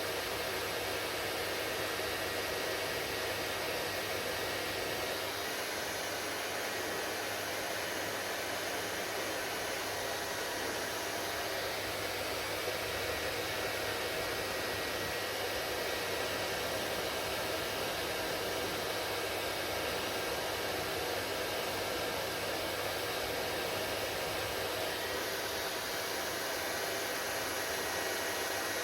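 Hair dryer running steadily: an even rushing blow of air with a faint steady hum, unchanging throughout.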